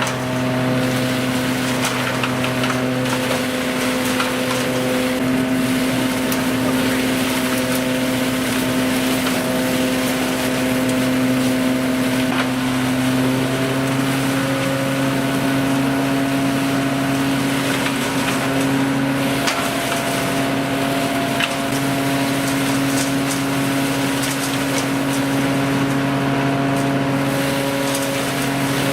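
Tractor-driven leaf vacuum running on the tractor's PTO shaft: a steady mechanical drone with a constant pitched hum over a rushing noise, and scattered small clicks.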